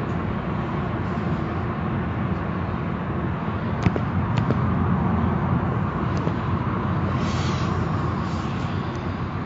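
Car wash running with a steady low rumble. There are a couple of sharp clicks about four seconds in and a short burst of hiss, like a spray, about seven seconds in.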